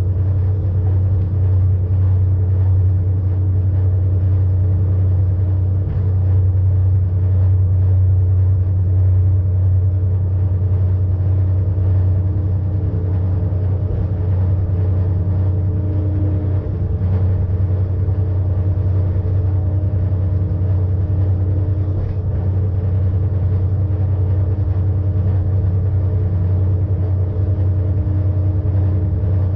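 Electric rack railcar of the ČSD class EM 29.0 running along the track, heard from the driver's cab: a steady low rumble with a constant hum from the drive.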